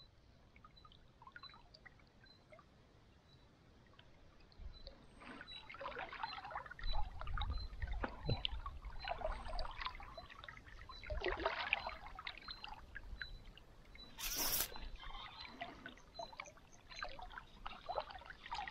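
Water splashing and sloshing as a hooked chub fights at the surface on a bent fly rod. It is faint at first, grows busier about five seconds in, and has one short, sharp splash about fourteen seconds in.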